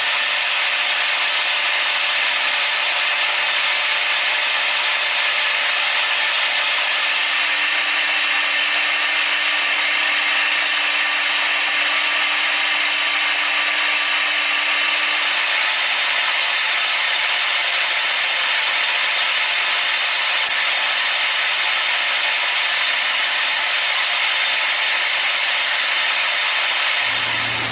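Steady mechanical noise from workshop machinery, a hissing, whirring sound that keeps an even level and is strongest in the upper middle range. It cuts off abruptly near the end.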